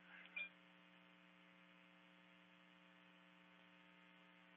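Near silence: a faint, steady mains hum with one faint click about half a second in.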